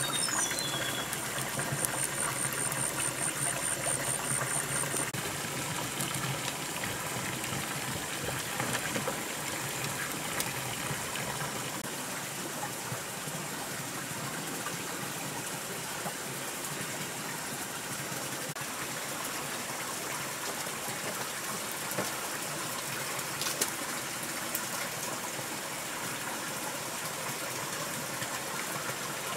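Steady rush of running water. A high, evenly pulsing call, like an insect, sounds through the first few seconds, and a short whistle falls in pitch near the start.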